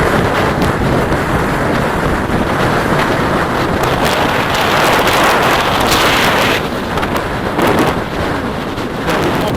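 Strong wind buffeting the microphone in a loud, steady rush, gusting harder in the middle.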